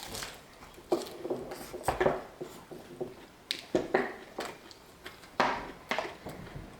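Close-miked eating sounds: irregular sharp crunches, smacks and clicks, about one or two a second.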